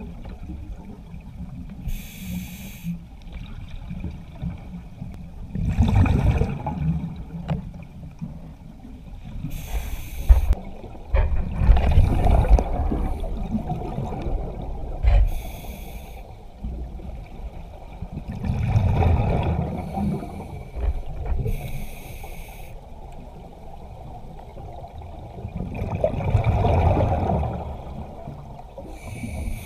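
Underwater sound picked up by a submerged camera: a muffled low rumble of moving water that swells and fades about four times, with a few short high hisses in between.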